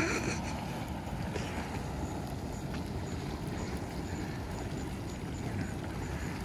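Blood Geyser, an iron-red hot spring geyser, churning and splashing out of sight, heard as a steady low rushing noise. There is a brief knock at the very start.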